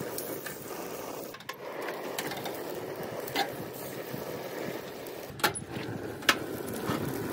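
Thick steaks sizzling steadily on the hot grates of a propane grill during the sear. A few sharp clicks of metal tongs on the steel grate come as they are turned, the loudest near the end.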